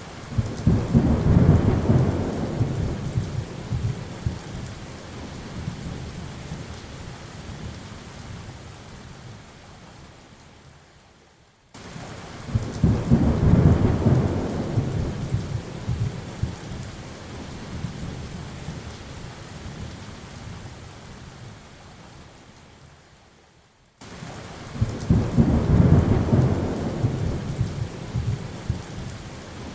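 Steady rain with rolling thunder: three deep rumbles about twelve seconds apart, each starting suddenly, peaking within a couple of seconds and slowly fading under the rain.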